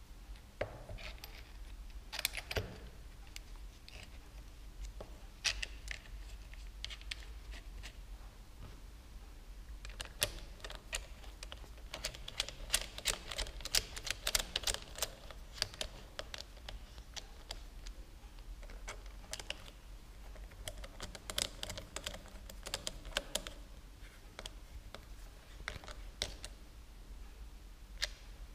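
Small plastic and metal clicks and scrapes as handlebar switch-unit parts are fitted by hand and the clamp screws are turned with a hand driver, with two runs of rapid ticking in the middle and later on.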